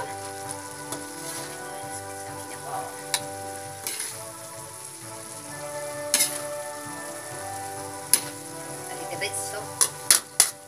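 Metal spatula scraping and clinking against a metal wok as cooked bitter gourd with egg is stirred and scooped up, with the food sizzling in the pan. The clinks come quicker near the end. Background music with held notes plays underneath.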